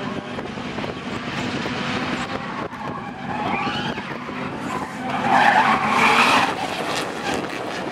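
Drift car sliding sideways through a corner: engine running hard and tyres squealing, loudest for about a second and a half some five seconds in.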